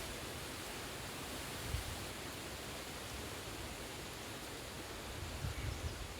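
Steady, even hiss of background noise, with a few soft low thumps about two seconds in and again near the end.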